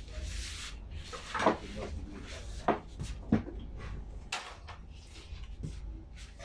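Several sharp knocks and clicks of household things being handled, the loudest about a second and a half in, among the wet, slurping bites of a man eating juicy watermelon slices.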